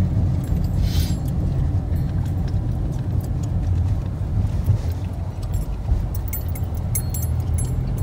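Car engine and tyre noise heard from inside the cabin as the car drives slowly: a steady low rumble. A few faint light clicks come in the last few seconds.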